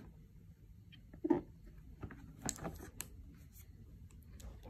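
A cardboard headset box being handled and turned over in the hands: a few short knocks and scrapes against the box, the loudest about a second in.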